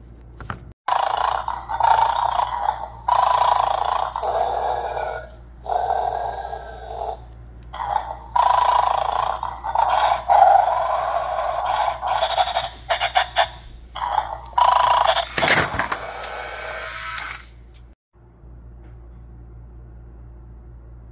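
Electronic bulldog toy from a treat-guarding game playing recorded dog sounds, snoring and growling, through its small speaker in repeated bursts of one to two seconds. About fifteen seconds in comes a louder, sharper sound, and then the toy goes quiet.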